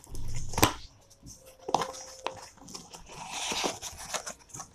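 Scissors cutting the packing tape on a cardboard box, then the box's flaps being pulled open. It starts with a loud crunch and a sharp snap in the first second, a few single clicks follow, and a longer rustle of cardboard comes near the end.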